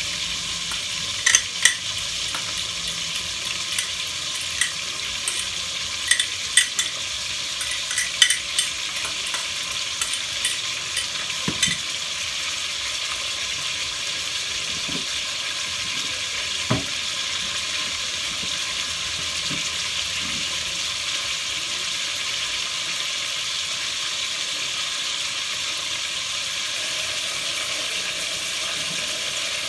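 A spoon clicking and scraping in a bowl as flaked tuna is stirred into mayonnaise, the clicks coming often in the first twelve seconds and then stopping but for one, over a steady sizzling hiss from veal cooking in a pot on the stove.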